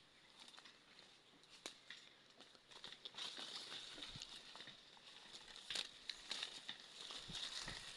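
Footsteps crunching through dry grass, leaf litter and twigs, with scattered crackles and snaps that grow louder about three seconds in, over a steady high-pitched hiss.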